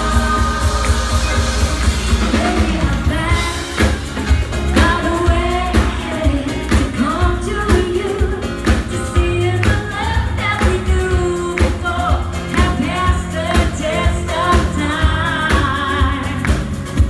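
Live pop song: a woman sings lead into a microphone, with backing singers, over a band with a steady drum beat, heavy bass and electric guitar.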